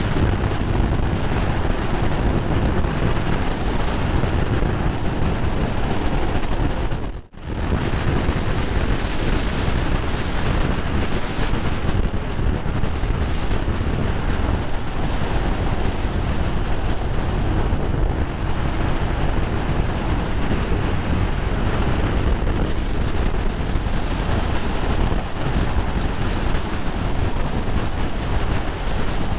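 Wind rushing over the microphone of a Honda Transalp motorcycle moving at road speed, a steady dense noise that buries the engine. The sound drops out for a split second about seven seconds in.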